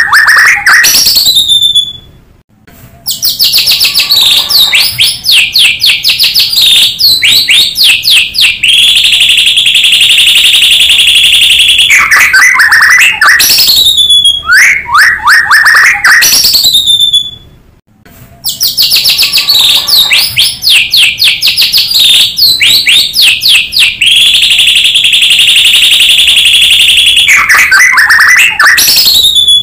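White-rumped shama song played from a recording: rapid high trills, falling whistles and a long steady buzzing note. The same passage of about fifteen seconds repeats after a brief break, as a looped lure track.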